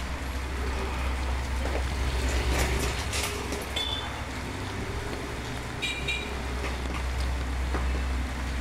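Street traffic on a wet road: a steady low engine rumble from vehicles nearby, with faint scattered clicks and two brief high-pitched sounds in the middle.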